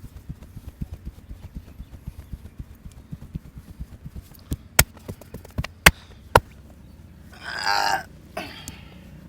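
Hands patting and tapping in a fast, steady rhythm during a massage, then three loud sharp snaps or cracks, followed near the end by a short vocal sound.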